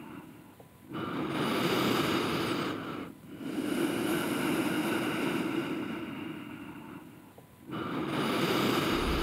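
Sound-design track of an architectural projection show: washes of noise, like surf or breath, that swell and fade, dropping away almost to nothing three times and building back up.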